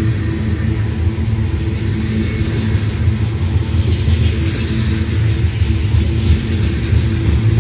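Loaded covered hopper cars of a freight train rolling slowly past: a steady low rumble of steel wheels on the rails.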